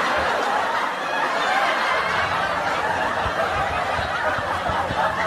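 Several people laughing and snickering at once, a dense continuous sound of overlapping voices.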